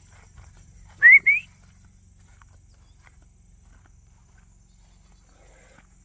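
Two short rising whistle notes in quick succession, about a second in: a person whistling to call a pet.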